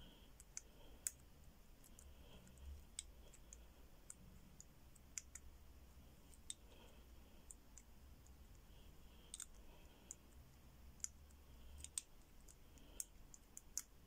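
Faint, irregular clicks of a four-wheel combination padlock's number wheels being turned by hand, one wheel at a time, while the wheels are felt for stiffness and looseness to decode the combination.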